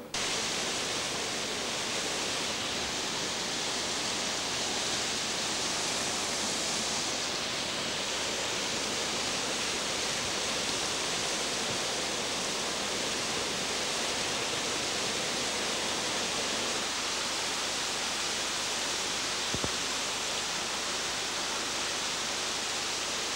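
Steady rush of a large waterfall in a Japanese garden, water pouring over a wide stone ledge, with a small click a few seconds before the end.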